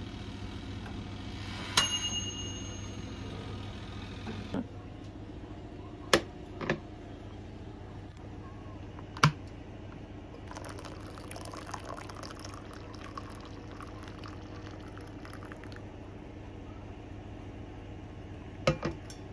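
A sharp, ringing clink of hard objects about two seconds in, then a brief hiss like liquid running, followed by a few short knocks and taps over a steady low hum.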